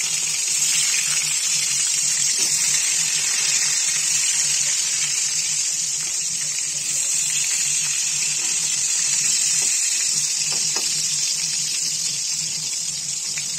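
Brinjal (eggplant) slices sizzling in hot oil in an aluminium kadhai: a steady, loud frying hiss.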